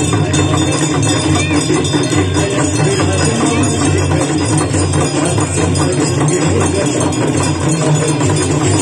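Ganga aarti temple bells, rung rapidly and without pause, over devotional music.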